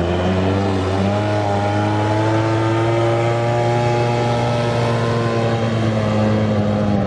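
Brush-cutter engine powering an RC model boat, running steadily at speed, its pitch creeping slightly higher over the first few seconds.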